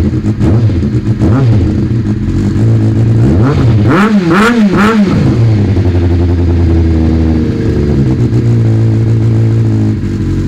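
Kawasaki ZX6R inline-four engine through a Blue Flame stubby race-can exhaust, idling with a couple of light throttle blips, then three quick sharp revs about four seconds in before settling back to a steady idle.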